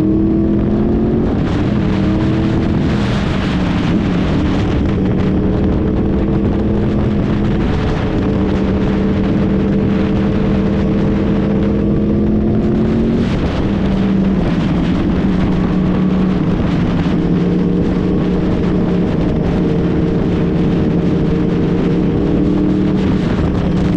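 Sport bike engine running under steady throttle at cruising speed, its pitch creeping slowly upward with a brief drop in pitch a little past halfway, over heavy wind rush on the microphone.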